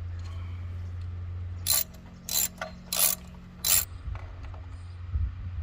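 Ratchet wrench clicking four times in an even rhythm while working a spark plug on the Honda Prelude's H22A engine, over a steady low hum.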